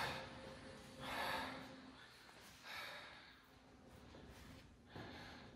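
A man breathing out heavily three times, soft audible exhales about one to two seconds apart, as he stretches his arms overhead on a massage table.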